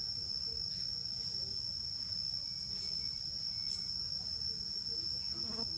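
Insects droning in one steady high-pitched tone.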